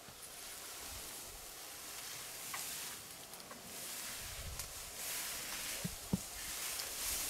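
Elephant herd moving and feeding through long grass close by: soft rustling of grass over a steady high hiss, with one sharp snap about six seconds in.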